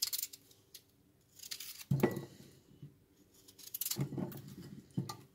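A knife cutting raw peeled potatoes into chunks in the hand, the pieces dropping into a glass bowl with a dull knock. There are a few separate cuts, about two seconds apart.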